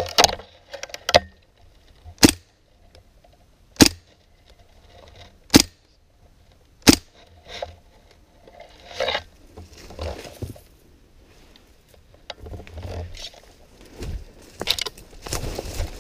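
Airsoft gun firing single shots: about seven sharp cracks a second or two apart over the first seven seconds, followed by scraping and shuffling movement noise.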